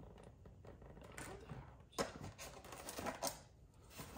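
Plastic model-train track pieces clicking and clattering as they are handled and pulled from a plastic packaging tray, with one sharp click about halfway through and a cluster of clicks near the end.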